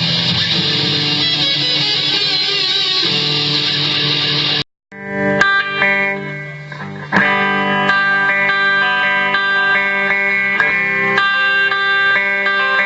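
Electric guitar played through a Boss ME-20 multi-effects pedal: first a dense, distorted tone, then a sudden cut to silence about four and a half seconds in, and after it clearer, separate picked notes with a different effect sound.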